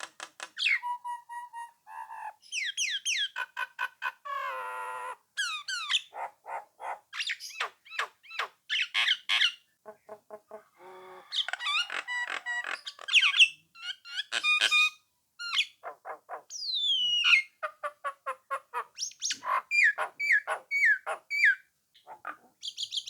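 A jalak nias, a cage-kept starling, singing in full chatty song: a fast, varied string of whistled glides, rapid chattering trills and harsher squawking notes, with a few short pauses.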